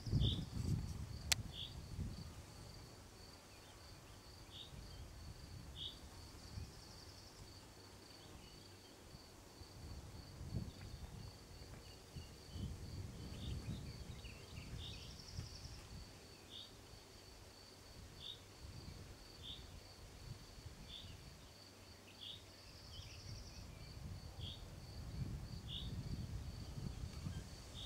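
An insect chirping steadily in an even, fast rhythm of about two or three chirps a second, while a bird repeats a short call every second or two. A low rumble runs underneath, strongest at the start and again near the end.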